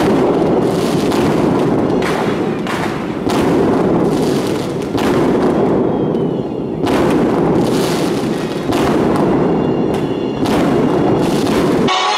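A dense, continuous barrage of fireworks and firecrackers going off across the city, crackles and booms overlapping into one din that swells and eases every second or two. Just before the end it gives way to music from a television broadcast.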